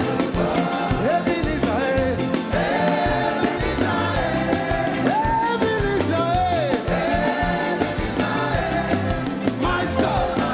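Live gospel praise music: singing voices over a band playing a steady dance beat.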